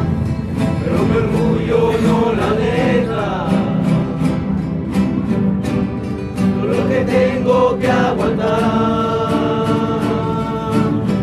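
Rondalla music: guitars strummed briskly with a group of voices singing together.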